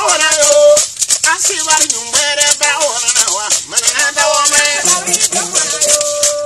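Traditional Bissa griot music: male voices singing over the steady shaking of gourd rattles, with held notes from a one-string fiddle with a gourd body.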